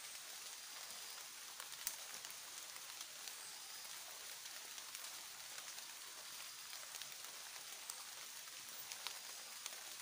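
Quiet tropical forest ambience: a faint, even high hiss with scattered soft ticks and one sharper click about two seconds in.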